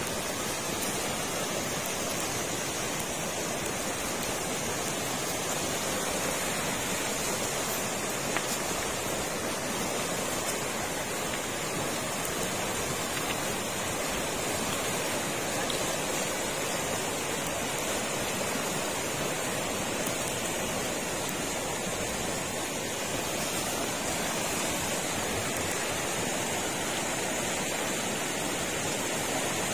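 Flowing river water rushing steadily, an even unbroken roar of water.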